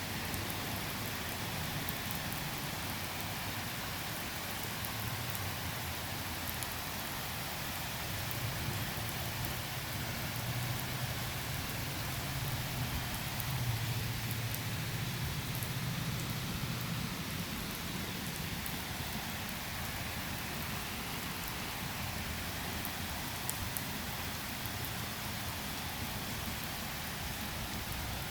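Heavy rain falling steadily in a thunderstorm, a dense even hiss with scattered drop ticks. A faint low rumble swells and fades in the middle.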